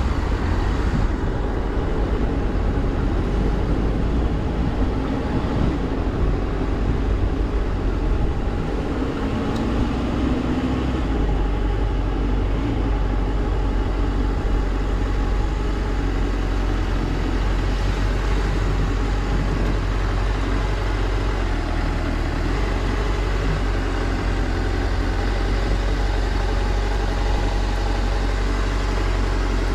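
Suzuki GSR400's inline-four engine running through its stock exhaust during a ride. It is steady, with a brief rise in pitch about ten seconds in.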